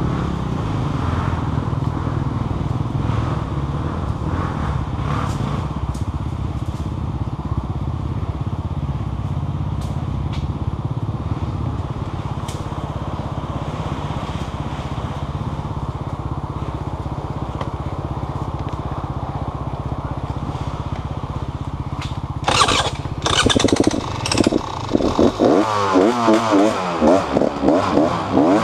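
An engine running steadily at low revs, then revved hard in repeated bursts near the end, its pitch swinging rapidly up and down.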